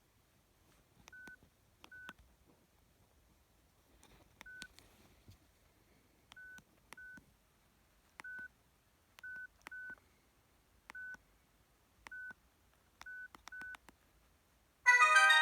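Keypad of a Huawei G7002 mobile phone: about a dozen short, same-pitch key beeps, each with a button click, at uneven intervals. Near the end a preloaded ringtone starts abruptly, a loud chiming melody.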